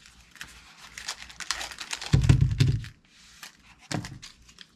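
Handling noise as a knife is drawn from its camo sheath and a clear plastic blade pack is handled: scattered clicks and plastic rustles, with one louder thump about two seconds in.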